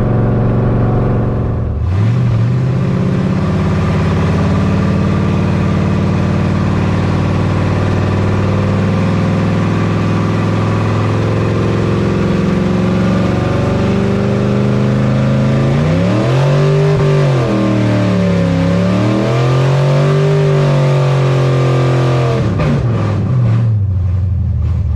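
LS-swapped Chevrolet squarebody pickup's V8 engine heard from inside the cab: about two seconds in its note climbs and then holds steady, later it rises and falls twice, and it drops back near the end.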